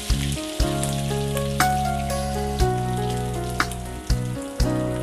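Background music of sustained chords with a beat about once a second, over the sizzle of coated chicken pieces frying in hot oil in a pan.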